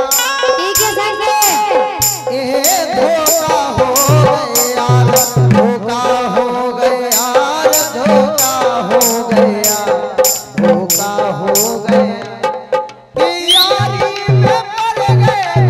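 Live Indian folk music without vocals: harmonium and keyboard melody over a hand drum, with a steady beat of high, sharp percussion strokes. Near the end the music dips briefly, then a short rising sweep comes in.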